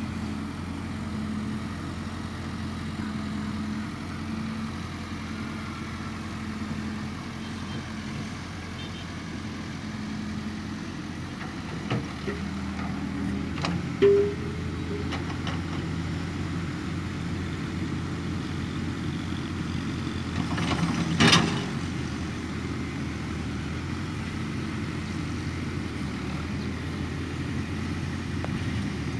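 Excavator engine running steadily, with a few short knocks partway through and a louder burst of clattering noise lasting about a second later on.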